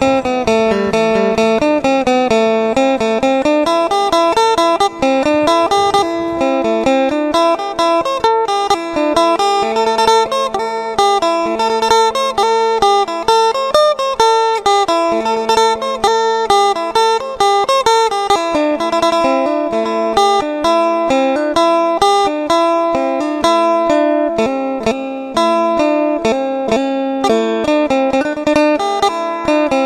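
Phin, the Isan plucked lute, playing a quick, lively melody of rapidly picked notes over a held drone note.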